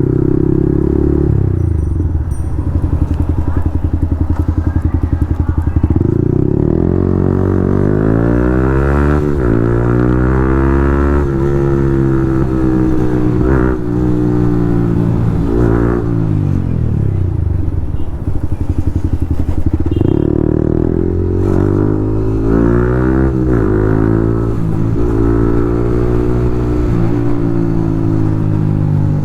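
Yamaha MT-15's single-cylinder engine through an Akrapovic full-system exhaust. It runs steadily at first, then pulls up through the gears, the revs rising and dropping back at each upshift. Near the middle it eases off, then accelerates through the gears again.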